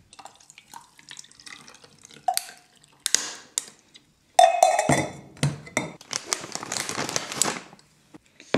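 Ice cubes clinking against a glass, then coffee poured over the ice for a couple of seconds, splashing and rattling the cubes.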